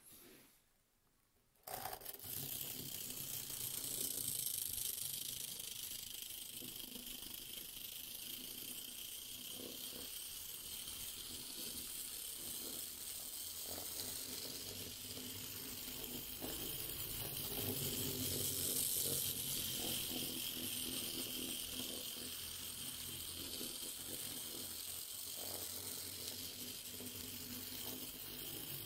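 Near silence, then about two seconds in a 009 live steam locomotive is heard running on the track: a steady hiss with a low hum and faint irregular clicks from the running gear and wheels.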